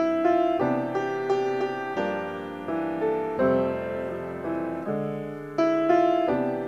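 Grand piano playing a slow piece: chords and melody notes struck about every half second to a second, each left to ring and fade.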